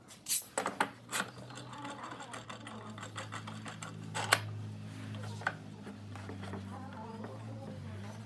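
Steel bar clamps being set on a wooden frame: sharp metal clicks and knocks as the jaws are slid along the bars and tightened, the loudest a little over four seconds in. A steady low hum runs beneath from about a second in.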